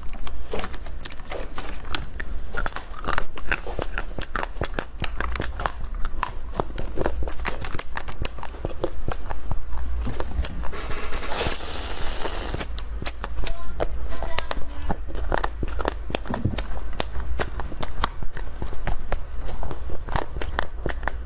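Close-miked crackling, snapping and crunching of chocolate candy: coloured candy spoons pried out of a chocolate tray, then bitten and chewed. A dense run of sharp cracks, thickening into a hiss of crackle about halfway through.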